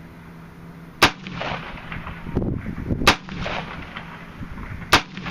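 DPMS AR-15 rifle in .223 firing three single aimed shots about two seconds apart, each sharp crack followed by a trailing echo.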